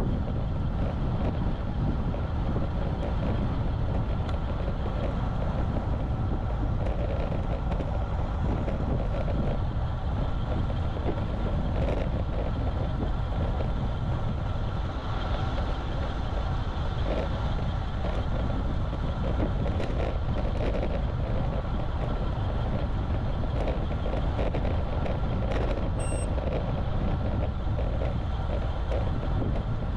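Steady wind noise on the camera microphone, with the tyre and road noise of a road bike riding along.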